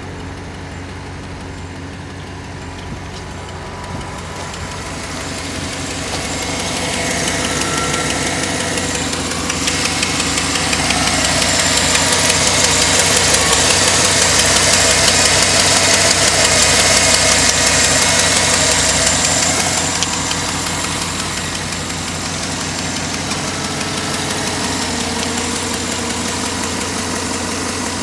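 GM 6.2-litre L92 Vortec V8 idling steadily. It is heard first from the cabin and then up close in the engine bay, where it is loudest and brightest in the middle.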